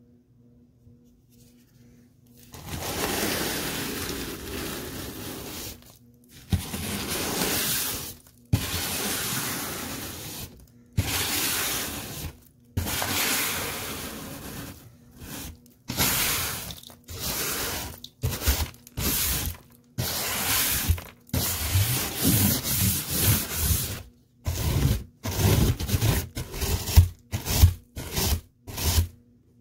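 Dry dirt, lint and confetti being crunched and rubbed in separate strokes, starting about two and a half seconds in. The strokes are long at first and become short and quick near the end.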